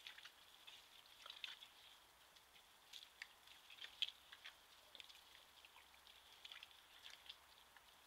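Wild boars rooting in wet mud: faint, scattered wet clicks and smacks from their snouts and mouths, the sharpest about four seconds in, over a thin steady high hiss.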